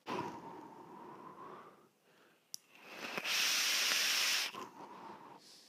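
A vaper draws slowly through a rebuildable dripping atomizer on a box mod, a faint airy hiss with a steady whistle-like tone, then blows the vapour out in a loud, breathy exhale about three seconds in. A small click comes just before the exhale.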